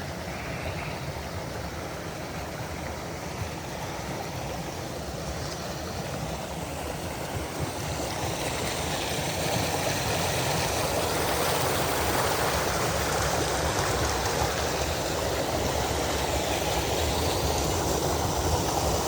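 Running water of a forest stream: a steady rush that grows steadily louder.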